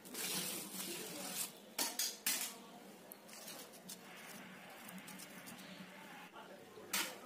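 Metal cake-decorating tools scraping across soft whipped-cream frosting as the cake is smoothed and combed, with a few sharp metallic clinks of the knife and scraper, about two seconds in and again near the end.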